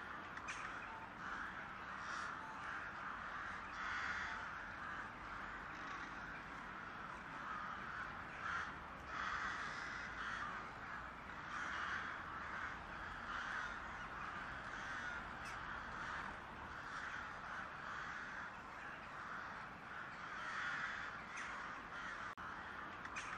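A flock of crows cawing, many calls overlapping into a continuous chorus.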